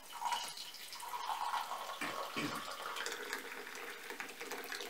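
A hot drink being poured in a steady stream from a stainless steel thermos flask into a ceramic mug, splashing and gurgling as the mug fills.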